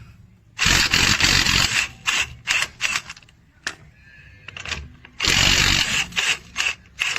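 Cordless impact wrench hammering in trigger bursts: a run of about a second, then several quick blips, then another run near the end followed by more short blips.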